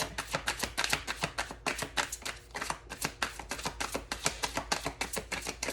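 A deck of tarot cards being shuffled by hand: a quick, uneven run of soft card slaps and clicks.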